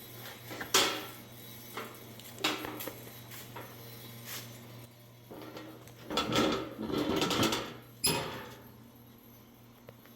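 Metal clanks and scraping as a battery and a sheet-metal side door are fitted on a mini skid steer: a few sharp knocks, with a longer scraping stretch shortly before the last, loud clank.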